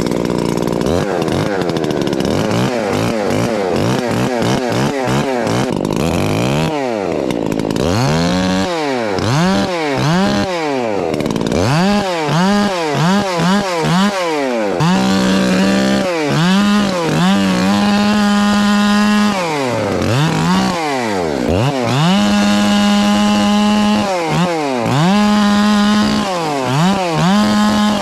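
Two-stroke chainsaw cutting brush, revved up and dropped back to idle over and over between short cuts, with a few longer stretches held at full throttle.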